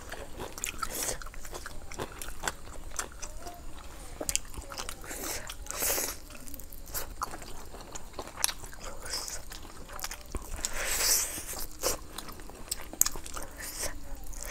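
Close-miked eating: irregular crunchy bites and wet chewing of grilled chicken wing and spicy salad.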